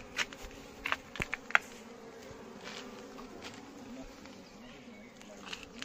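Honey bees (Apis cerana indica) buzzing steadily around an opened colony. A quick cluster of sharp clicks and knocks comes about a second in.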